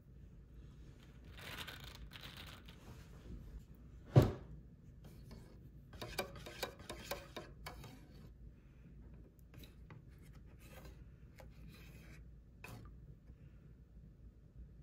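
A spatula stirring and scraping thick coconut milk in an open metal can, with soft rubbing and clicking sounds. A single sharp knock about four seconds in.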